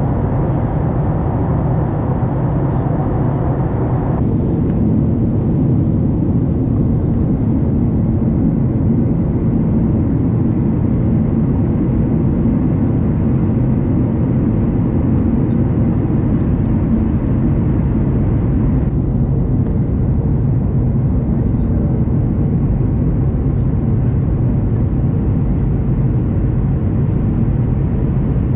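Steady low rumble of an airliner's turbofan engines and airflow heard inside the cabin at a window seat beside the wing engine. The higher hiss drops away abruptly twice, about four seconds in and again past the middle.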